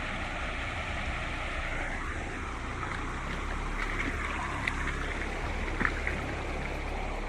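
Creek water rushing steadily where the high water overflows, an even noisy wash with a low rumble underneath, and a couple of faint clicks about two-thirds of the way through.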